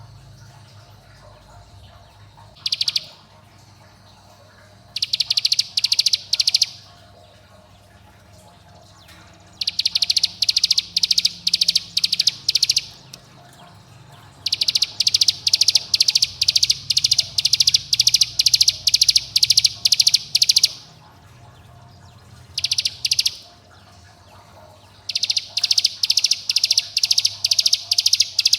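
Ciblek gunung (a mountain prinia) singing its rapid 'bren' call as lure song: runs of sharp, high, evenly repeated notes, about four a second, lasting from a brief burst to several seconds, with short pauses between runs.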